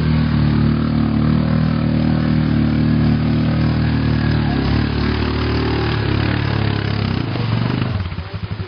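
ATV engine running hard at steady revs as it pulls through a mud hole, passing close by. It fades near the end as the machine moves off.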